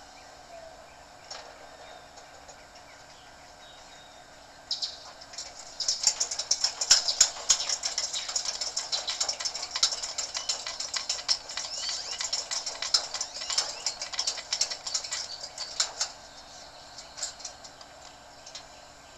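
Pump-pressurised Coleman liquid-fuel camp stove burner being lit. A short hiss about five seconds in, then about ten seconds of loud crackling and sputtering as the burner flares on excess fuel, dying down near the end.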